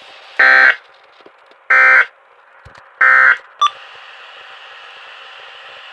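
Three short bursts of SAME digital data tones, the warbling two-tone (about 1.5 and 2 kHz) data signal of the weather-radio alert system, each about a third of a second long with a one-second gap between them. Bursts this short match the end-of-message code that closes an alert. A brief blip follows, then a faint steady radio hiss.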